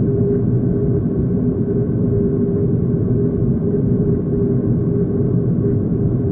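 Boeing 737-500's CFM56 engines running at taxi power, heard inside the cabin as a steady low rumble with a steady hum on top, no spool-up.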